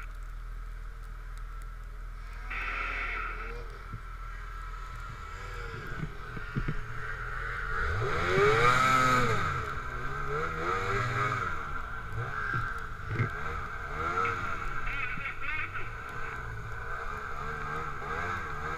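Snowmobile engines running through deep snow, with a rev that rises and falls in pitch about eight seconds in, the loudest moment.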